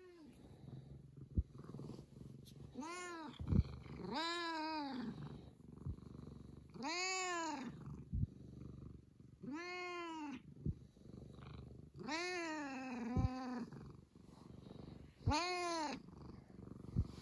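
A tabby cat meowing about six times, each meow about a second long, rising then falling in pitch, with purring in between while it is stroked. A few sharp knocks sound now and then.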